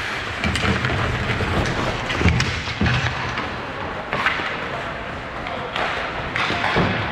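Hockey game in progress: sharp knocks and thuds of sticks, puck and bodies against the boards, over the rink's steady background noise.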